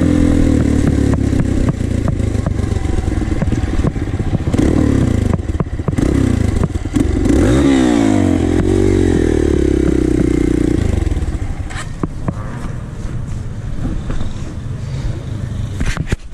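Dirt bike engine heard from on the bike, revving up and down several times, then running steadily. About two-thirds of the way through it drops to a lower, quieter running as the bike slows.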